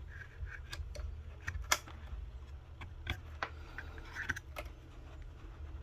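A scattering of small, irregular clicks and taps as thin jumper wires are pulled out of the pins of a Volkswagen Bosch MED17.5 engine control module's plastic connector, over a low steady hum.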